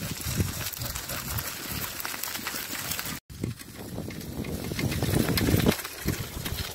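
Dog cart rolling over a gravel track behind two trotting Samoyeds: crunching of wheels and paws on gravel. The sound breaks off for an instant a little over three seconds in.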